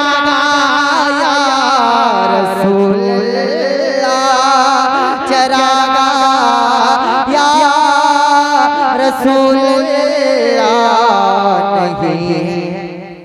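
A man singing a naat solo into a microphone, holding long ornamented notes with wavering, gliding pitch and no words, dying away near the end.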